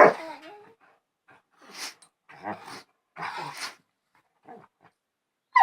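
Two dogs 'talking': a short, loud whining call that bends in pitch at the start, then several short breathy huffs, and another loud whining call beginning right at the end.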